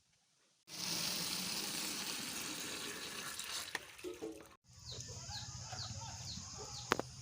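Water running steadily for about four seconds, as when filling a poultry drinker. It stops abruptly and is followed by chicks peeping in short falling chirps about twice a second over a low hum.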